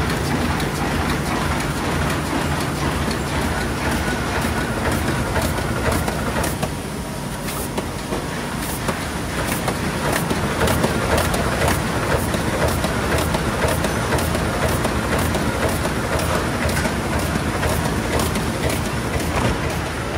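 Meccanotecnica Aster 180 automatic book-sewing machine running, a steady mechanical clatter with regular clicks repeating through it.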